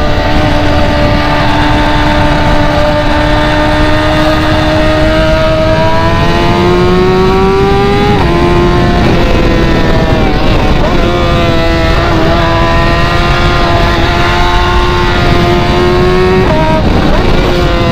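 A BMW's straight-piped exhaust droning loudly under acceleration. The engine pitch climbs slowly and drops sharply twice, about a third of the way in and near the end, as the car shifts up a gear.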